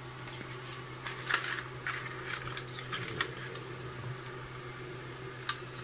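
Handling noise from a paper instruction leaflet and a plastic digital luggage scale: a cluster of short rustles and clicks about a second in, and one more click near the end, over a steady low hum.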